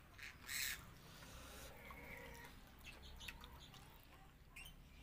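Faint birds chirping in the background, with a few soft, short sounds of someone eating with his hand.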